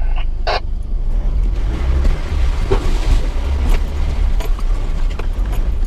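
Mitsubishi Triton ute driving off-road, heard from inside the cab: a steady low engine and drivetrain rumble that swells about two seconds in, with scattered knocks and rattles.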